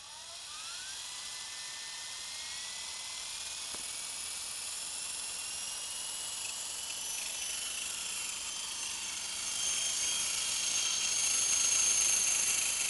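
Radio-controlled scale Bell UH-1B model helicopter spooling up: a high motor-and-rotor whine that rises quickly in pitch over the first couple of seconds, then keeps climbing slowly. It grows louder near the end as the model lifts off into a hover.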